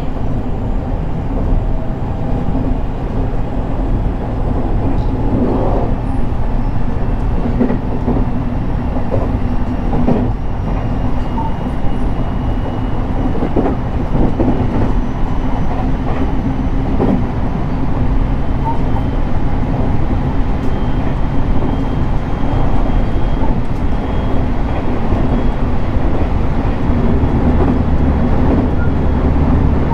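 JR West 223 series 2000 electric multiple unit running at speed, heard from inside the passenger car: a steady rumble of wheels on rail with scattered clacks and knocks.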